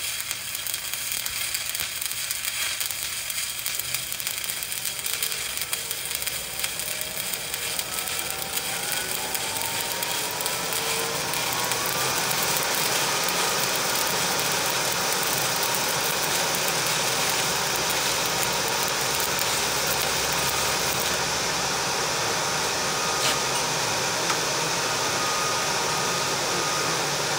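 Stick-welding arc crackling and sizzling as a bead is run. About twelve seconds in, a rising whine leads into a steady mechanical whir and hiss that carries on to the end.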